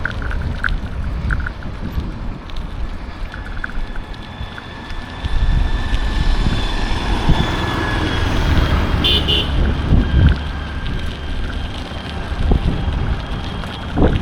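Road traffic running past, a steady engine and tyre rumble that gets louder about five seconds in as vehicles come close. A short horn toot sounds about nine seconds in.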